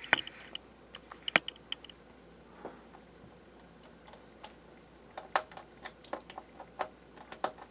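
Small sharp clicks and taps of a screwdriver and tools working screws on a laptop's plastic case: a few near the start, then a quicker run of clicks in the last couple of seconds.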